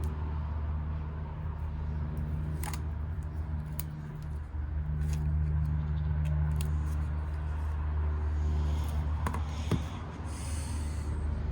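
Steady low hum of road traffic with a constant engine drone underneath. Over it come a few light clicks and, near the end, a brief rustle from handling the drone and its packaging.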